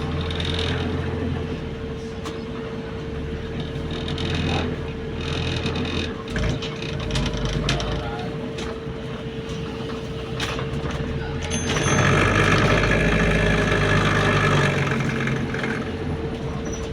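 Inside a moving city bus: a steady engine drone with a constant hum, and interior fittings rattling with short clicks throughout. About twelve seconds in, the running noise grows louder for a few seconds before easing.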